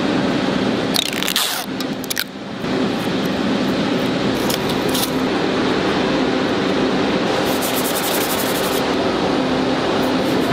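Steady workshop hum with a few short scraping sounds of hand tools worked on the wooden box's edge: one about a second in, one around five seconds, and a quick run of strokes near eight seconds.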